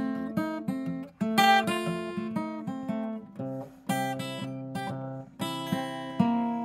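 Solo acoustic guitar playing an instrumental intro: picked and strummed chords with notes ringing between the strokes, a few strokes a second.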